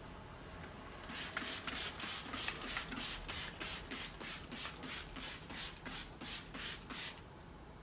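Rhythmic scrubbing, about three back-and-forth strokes a second, starting about a second in and stopping near the end.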